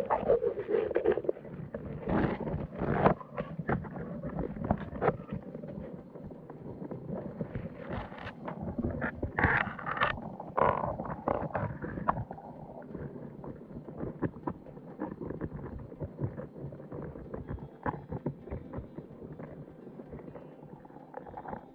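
Signal crayfish moving inside a submerged wire-mesh trap, with irregular clicks, taps and scrapes of shell and legs against the mesh, bait and camera, over a low underwater rumble. A louder bout of scraping comes about halfway through.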